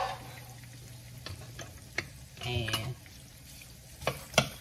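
Freshly added sliced onion sizzling as it fries in hot oil in a skillet, stirred with a wooden spoon. The spoon knocks against the pan a few times, loudest near the end.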